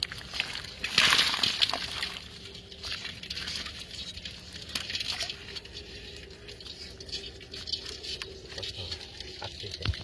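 Water sloshing and splashing as a mesh ring-net trap full of small fish, crabs and snails is shaken out into a pot. The loudest splash comes about a second in, followed by smaller splashes and wet rustling.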